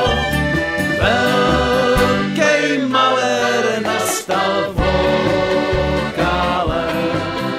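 A small old-time Czech dance band playing an instrumental break between verses, the accordion leading the tune.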